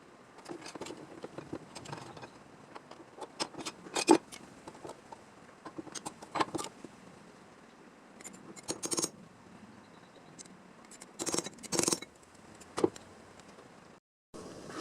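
Metal tools or small metal parts being handled: irregular clinks, taps and short scrapes, with the sharpest clack about four seconds in and further clusters around nine and twelve seconds.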